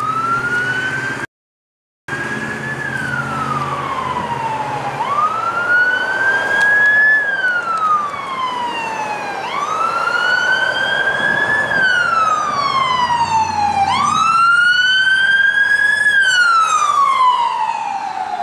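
Police car siren on its wail setting, rising and falling slowly in pitch, one full cycle about every four and a half seconds. The sound cuts out completely for under a second near the start.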